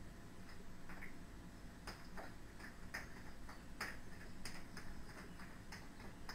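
Juggling balls slapping into the hands as they are caught and thrown, a quick, fairly even run of soft clicks, about two to three a second.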